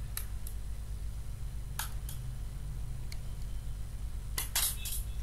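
Knife blade prying at the seam of a plastic laptop battery case: scattered sharp clicks and scrapes of the blade on plastic, with a quick cluster of louder scrapes and snaps near the end as the case starts to come apart.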